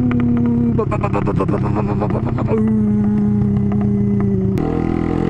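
Suzuki Intruder 125's single-cylinder engine running under way, with a rapid series of exhaust pops about a second in as the revs drop. The popping comes from the hot engine, which the rider says pops twice as much when hot.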